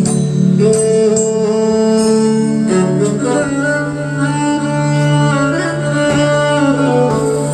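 Roland Fantom 06 synthesizer keyboard playing a melody of held notes over a sustained low drone.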